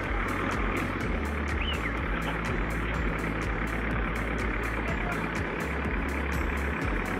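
Heavy machine engine running under background music with a steady beat and a shifting bass line.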